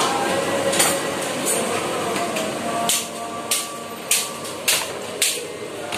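A run of five sharp knocks, a little under two a second, beginning about halfway through, over a steady clatter of kitchen background noise.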